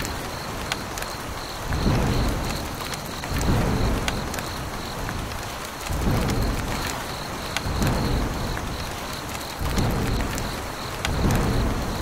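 Storm sound effect: a steady hiss of heavy rain with scattered drop ticks, and deep thunder rumbles that swell and fade about every two seconds.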